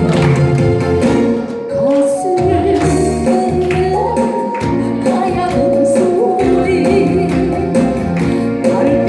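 A song: a lead voice singing long, wavering held notes over instrumental accompaniment with a steady beat.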